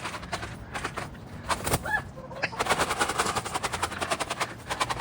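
Chickens pecking rapidly at mealworms, a fast, irregular run of sharp taps, with a brief chicken call about two seconds in.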